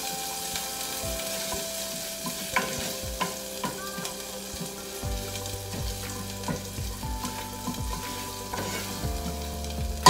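Green curry paste frying in oil in a stainless steel saucepan, sizzling steadily as a spatula stirs it, with scattered light taps of the spatula against the pan.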